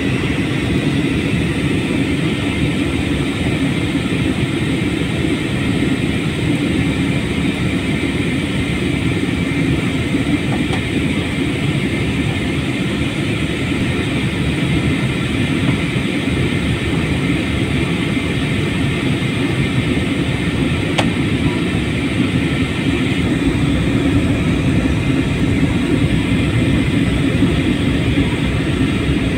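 Steady cabin noise inside a jet airliner in flight: the even drone of the engines and the rush of air past the fuselage, heard from a window seat, with a faint click about two-thirds of the way through.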